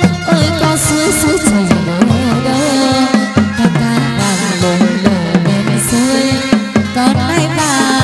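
Chầu văn ritual music playing: a gliding, ornamented melody on plucked strings over a steady beat of drum and wooden clappers.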